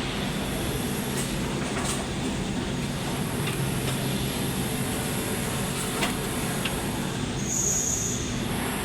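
Steady mechanical rumble with a few sharp clicks scattered through it, and a short high-pitched whine a little before the end.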